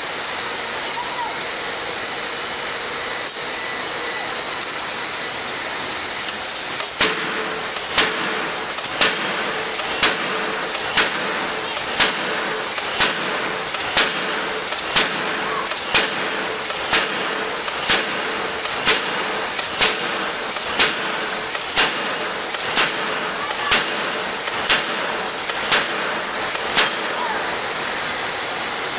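Heavy forging hammer striking a red-hot workpiece in its dies, about one blow a second, some twenty blows starting about seven seconds in, over a steady hiss of shop noise.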